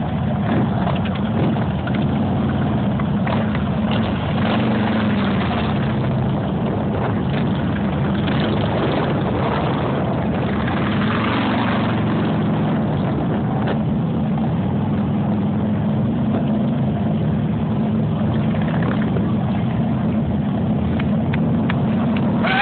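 Several Harley-Davidson touring motorcycles' V-twin engines running steadily at low speed as the bikes ride a tight formation drill.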